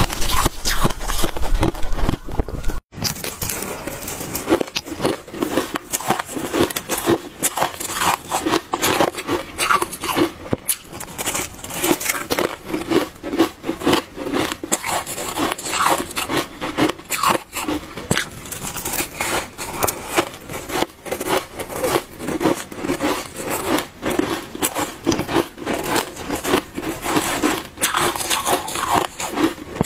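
Close-up crunching and chewing of soft frost in the mouth, a dense run of crackly crunches with a brief break about three seconds in.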